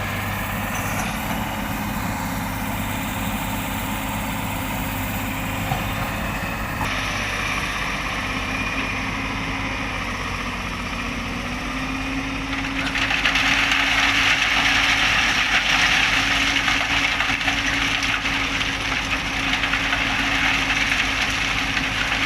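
Excavator's diesel engine running steadily, growing louder and harsher about two-thirds of the way through.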